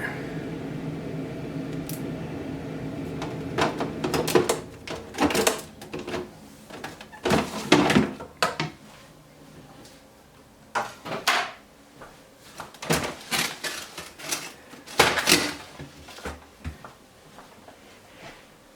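A refrigerator's ice-dispenser auger motor humming steadily for about four seconds, then stopping. After it comes a series of scattered knocks and clunks as the parts are handled.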